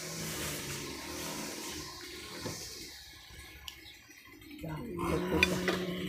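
A few light clinks of cutlery and dishes on a serving tray, with low voices talking.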